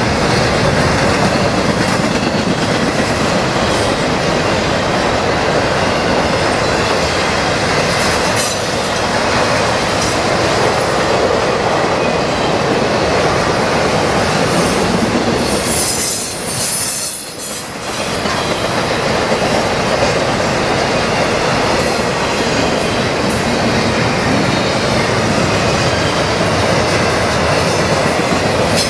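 CSX intermodal freight train rolling past: a steady loud rumble and rattle of the cars' wheels on the rails, dipping briefly a little past halfway.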